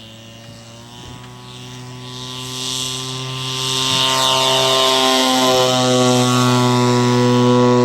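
Radio-controlled model Taylorcraft tow plane's engine running at full power on its glider-tow takeoff, its steady propeller drone growing much louder over the first few seconds as the plane approaches, then holding.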